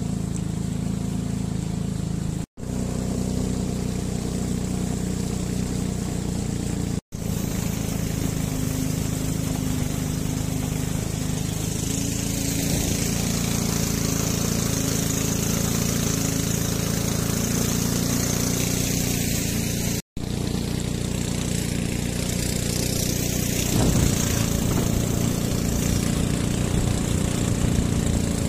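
Small motorboat's engine running steadily at speed, with a hiss of rushing water and wind that grows stronger about twelve seconds in. The sound drops out for an instant three times.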